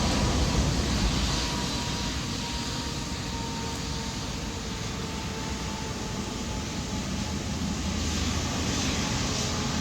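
Jet airliner engine noise: a steady rushing sound with a faint whine that drops slightly in pitch, easing off around the middle and growing louder again near the end.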